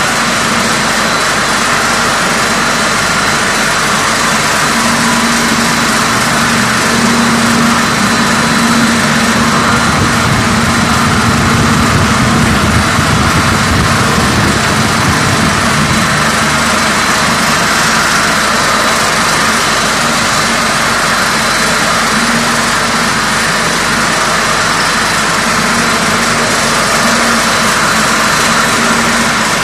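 Fully automatic macaroni production line running: the extruder's electric motors, die cutter and conveyors give a loud, steady mechanical drone with a constant hum.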